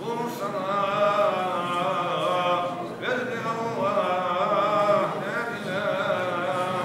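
A man's voice chanting Islamic religious recitation in long, held, ornamented phrases that waver in pitch, with a short break for breath about three seconds in and another about five seconds in.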